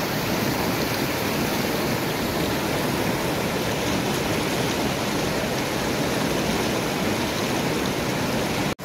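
Steady rushing of fast-flowing stream water. It cuts out for an instant near the end.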